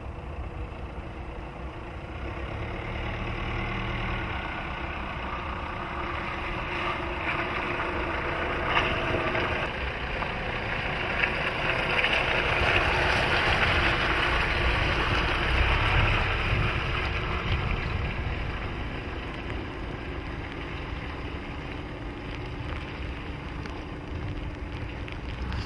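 Jeep Renegade Trailhawk's 2.0 MultiJet four-cylinder turbodiesel running at low revs as the SUV crawls off-road. It grows louder as the vehicle passes close about halfway through, then fades.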